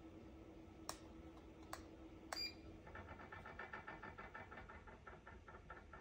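Faint steady hum from a bladeless LED ceiling fan, with three light clicks and a short electronic beep a little over two seconds in. Then the hum stops and a faint rapid pulsing, about five a second, runs on.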